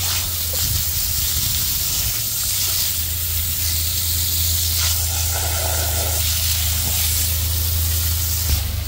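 Jet of water from a garden hose spray nozzle hissing steadily as it washes beet-juice tire ballast off a steel tractor wheel rim and tire. The spray shifts a little in tone about halfway through.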